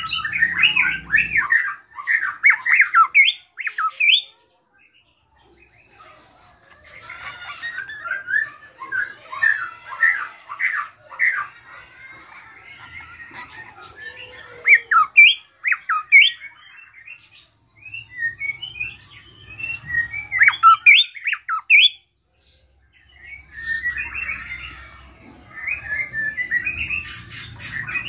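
Caged drongo (srigunting krantil) singing a varied song of quick chirps, squawks and whistles, full of mimicked phrases. It comes in bursts several seconds long with short pauses between them.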